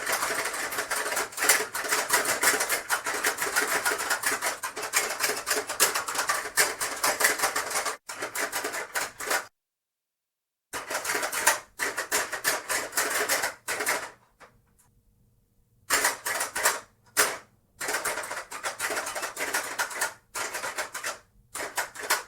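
Hungry Hungry Hippos board game in play: the plastic hippos' heads snapping in a rapid, dense clatter as the levers are hammered, with marbles rattling across the board. The clatter stops dead for about a second near the middle, pauses again for a couple of seconds later on, and resumes in shorter bursts.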